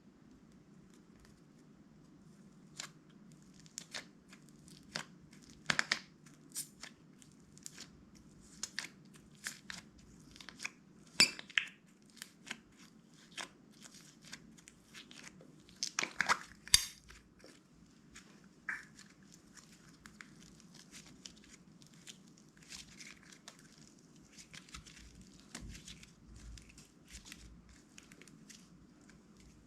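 Clear slime being kneaded and pressed by hand, giving irregular wet pops and crackles, with louder bursts about 11 and 16 seconds in.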